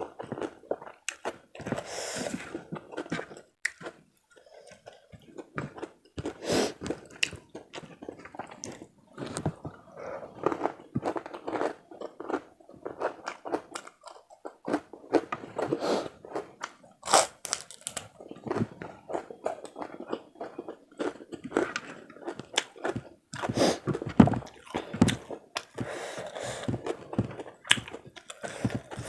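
A person chewing and crunching mouthfuls of karedok, a raw-vegetable salad in peanut sauce, with rice and crackers, close to the microphone: irregular crisp crunches between wetter chewing, with a couple of brief pauses.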